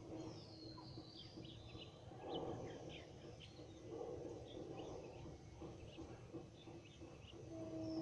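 Faint birdsong: many short high chirps scattered throughout, with a longer falling call near the start, over a low background murmur of outdoor ambience.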